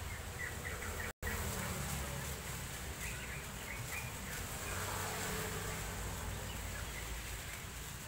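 Steady outdoor background noise with a few short, faint high chirps.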